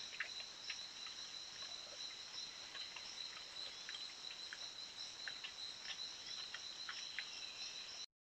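Steady chorus of tropical forest insects: high, even trilling at two pitches, with scattered faint ticks. It cuts off abruptly just before the end.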